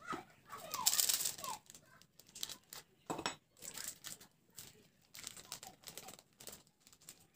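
Plastic spice sachet crinkling and crackling in irregular short bursts as it is squeezed and shaken out by hand.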